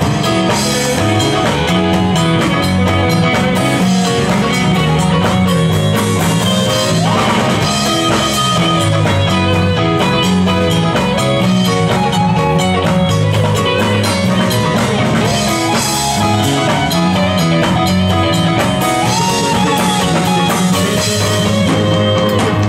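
Live rock band playing an instrumental passage: electric guitar, electric bass and drum kit with keyboard, loud and steady, without singing.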